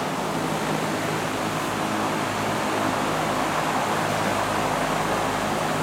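Large drum fans running: a steady rush of air over a low, even motor hum.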